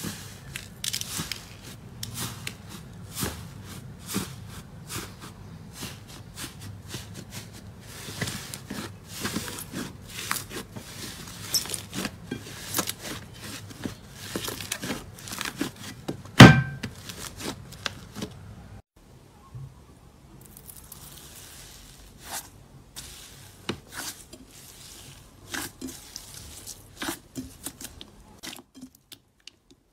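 Hands squishing and kneading slime, making a dense run of small crackling clicks and pops. One sharp, much louder pop comes about halfway through. The clicks grow sparser and quieter in the last third.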